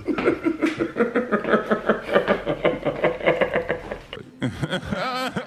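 Two men laughing, a run of chuckles pulsing about three or four times a second that eases off after about four seconds.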